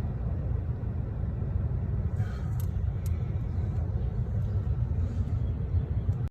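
A car's engine running with a steady low rumble, with a couple of faint clicks near the middle.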